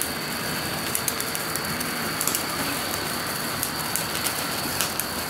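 Small firework going off with a steady hiss and scattered faint crackles.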